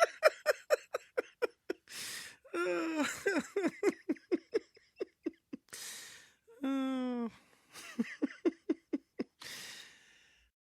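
A man laughing uncontrollably in fast pulses, about four or five a second, broken by sharp gasping in-breaths. About two-thirds of the way through there is one held, whining note.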